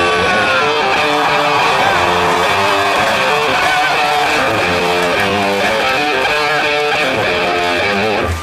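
Cumbia music playing, an instrumental stretch without singing.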